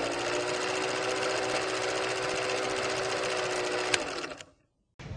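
Old film projector sound effect: a rapid, steady mechanical clatter over a steady hum, with a sharp click about four seconds in, then it stops shortly before the end.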